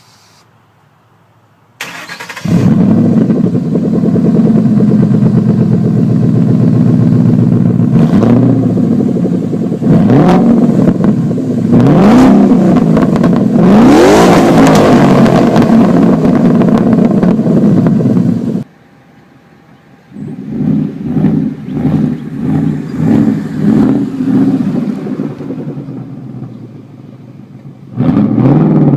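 A 2011 Mustang GT's 5.0 V8 on straight pipes, with no mufflers, fires up about two seconds in and runs loud, with several quick throttle blips that rise in pitch. About two-thirds of the way through, the sound drops away suddenly. It comes back as an uneven pulsing, then climbs in another rising rev near the end.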